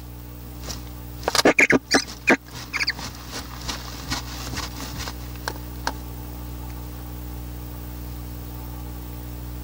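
Animal sounds: a quick cluster of short, sharp squeaks and scratchy clicks about a second in, thinning to scattered ticks, over a steady low hum.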